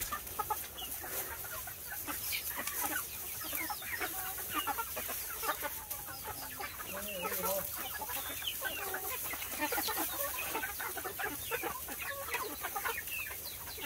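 A flock of young chickens calling continuously: many short, overlapping clucks and chirps.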